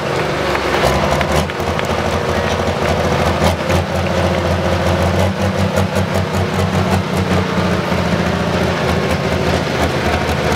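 Diesel engine of a John Deere 8520 pulling tractor running at low, steady revs through an open exhaust stack as the tractor rolls slowly past.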